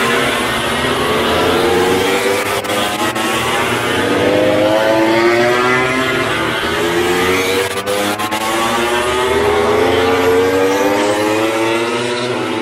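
Racing motorcycles at full throttle, their engines climbing in pitch over and over as they accelerate through the gears, several bikes overlapping.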